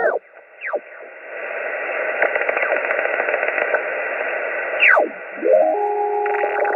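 HF amateur radio transceiver receiving a band on sideband: steady band static with crackles. Twice a whistle slides sharply down in pitch as the receiver passes a carrier. Near the end a steady set of tones comes in.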